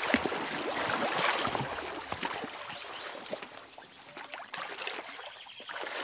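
Water splashing and churning as two male hippos fight, loudest over the first two seconds, then easing off to scattered splashes.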